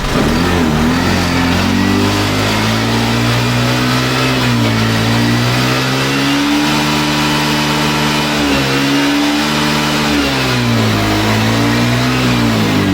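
Suzuki Access 125 scooter's single-cylinder four-stroke engine being revved, its pitch rising, holding and dropping back several times. It runs evenly through the revs, the misfire and jerking at 2000–3000 rpm cured by refitting the missing coupler inside the intake hose.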